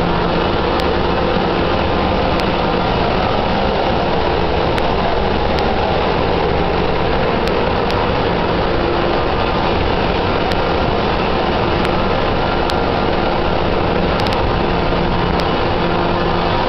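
Very loud, steady machinery din of a cruise ferry's engine room, with a low, constant hum under a dense, even noise, from a row of running centrifugal oil separators and the surrounding engine-room plant.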